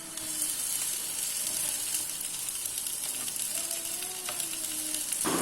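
Grated coconut, onion pieces and curry leaves roasting in coconut oil in a pan, sizzling steadily with a fine hiss.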